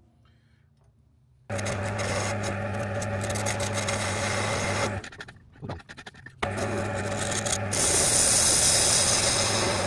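Metal lathe turning down the spigot on a cast piston: the spindle's steady hum with the scraping hiss of the tool cutting the casting. It starts about a second and a half in, breaks off briefly in the middle, and comes back with a brighter, hissier cut near the end.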